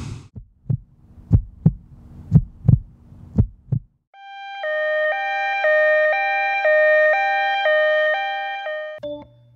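Heartbeat sound effect: four low double thumps (lub-dub), about one a second. About four seconds in, a sustained electronic chord swells in and pulses about twice a second.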